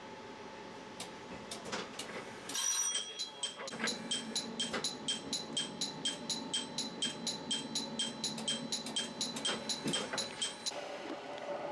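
Railway level-crossing warning bell ringing rapidly and evenly, about three rings a second, starting a few seconds in and stopping near the end, heard from inside a train.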